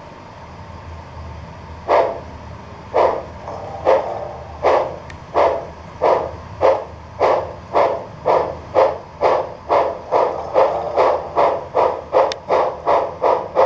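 Model steam locomotive's sound decoder playing exhaust chuffs through its small speaker. They start about two seconds in and quicken steadily from about one a second to about three a second as the locomotive pulls away.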